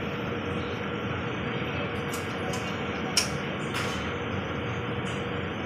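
Steady background hum and hiss of a convenience store, with a faint steady tone and a few light clicks between about two and four seconds in.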